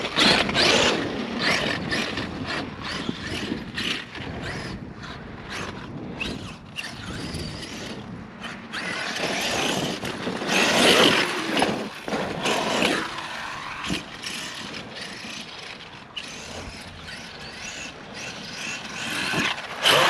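Arrma Outkast 8S RC truck's electric brushless motor whining up and down in pitch as it is throttled on and off, with its tyres churning soft dirt. The loudest surges come about halfway through and again near the end.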